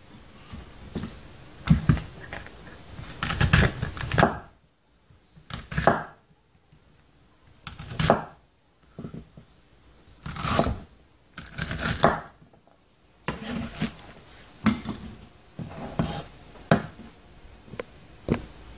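Cleaver-style kitchen knife chopping firm raw produce into cubes on a wooden cutting board: separate knocks of the blade on the board, irregularly spaced with short pauses between groups.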